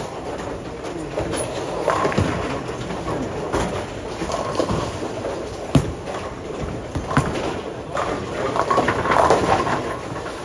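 Busy bowling alley: balls rolling down the lanes and pins clattering, with sharp crashes about two, six and seven seconds in over a steady background din.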